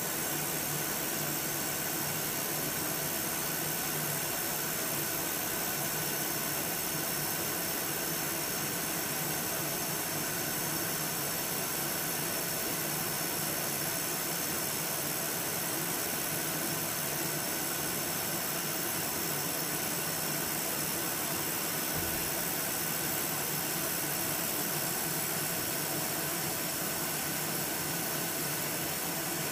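2000-watt air-cooled DenaliWeld Jet handheld laser welder with wire feed running a long continuous seam weld on thin stainless steel: a steady, unbroken hiss with a faint hum in it.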